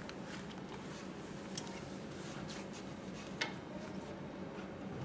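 Heavy sailcloth being slid and positioned by hand on a sewing machine table, with faint rustling and two light clicks, over a steady low hum.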